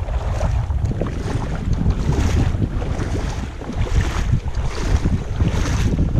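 Wind buffeting the microphone with a steady low rumble. Over it, water swishes about every one and a half to two seconds as someone wades through shallow sea water.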